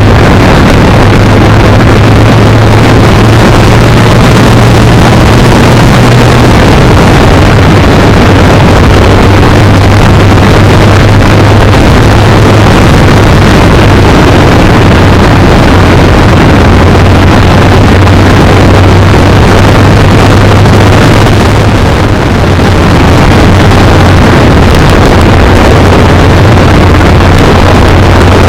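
Kawasaki Z900 inline-four engine running steadily under way, buried in heavy wind rush over the microphone. The engine note drops slightly about six seconds in.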